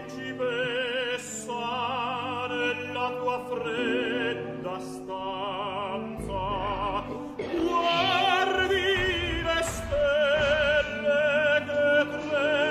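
Opera music: a high singing voice holds long notes with wide vibrato over a low, steady accompaniment. A deep rumble joins about halfway through.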